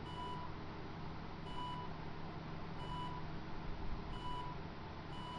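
Film-leader countdown beeps: short, even beeps, one about every second and a half, over a faint steady hiss and hum.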